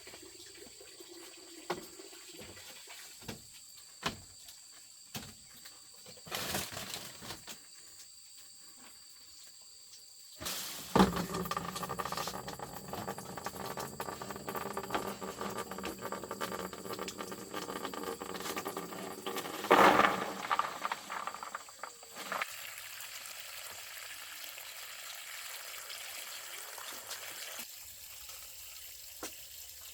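A few scattered knocks, then water running and splashing for about ten seconds, briefly louder near the end, before it dies down to a faint trickle.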